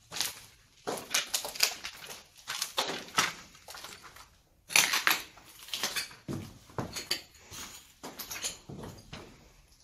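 Footsteps crunching over a debris-strewn floor: an irregular series of crackly crunches, roughly one or two a second, the loudest nearly five seconds in.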